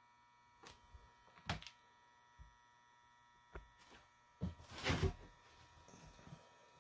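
Faint clicks and taps of multimeter test probes and leads against the stator's metal bolt terminals as they are moved from coil to coil, with a louder spell of handling knocks and rustle around five seconds in. A steady faint electrical hum runs underneath.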